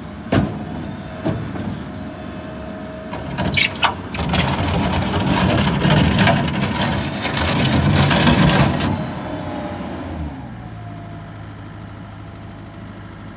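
Gehl skid steer engine idling, then revving up and working hard for about five seconds before dropping back to a steady idle. A couple of sharp clanks come near the start and a short high squeal just before the engine picks up.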